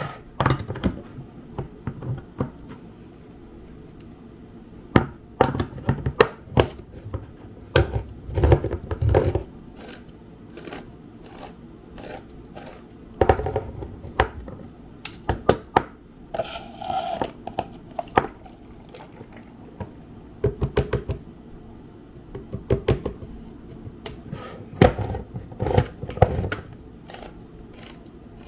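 A fork poking holes all over a baked sponge cake, its tines clicking and knocking irregularly against the baking dish, in short clusters of taps with pauses between.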